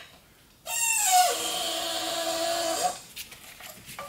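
A drawn-out metallic squeal as the automatic transmission is lowered out of the car on a transmission jack: it slides down in pitch, holds steady for about two seconds and stops, followed by a few light clicks and knocks.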